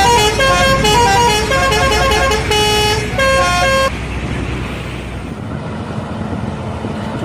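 Indonesian bus telolet horn playing a quick tune of stepped musical notes, cutting off about four seconds in; vehicle engine and road noise follow.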